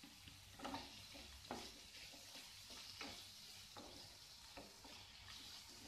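Wooden spatula stirring and scraping fried onion-tomato masala in a non-stick kadhai, several separate strokes about a second apart, over a faint steady sizzle of the masala frying in oil as diced potato is mixed in.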